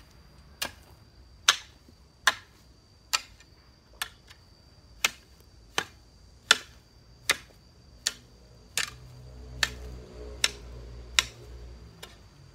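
A garden hoe chopping into the soil in a steady rhythm, one sharp strike a little more than once a second.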